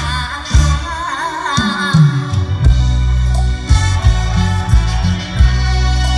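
Live mor lam band played loud through a big outdoor PA: a heavy bass line and a steady drum beat, with a singer's wavering voice prominent over it for the first couple of seconds before the band carries on alone.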